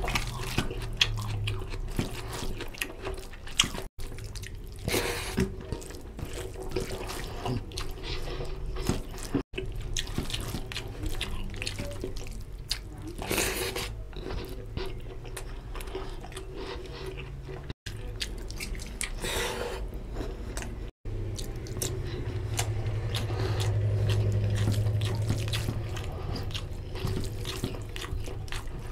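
Close-up wet eating sounds: fingers squishing rice into curry gravy, with chewing and lip smacking, a dense stream of small wet clicks.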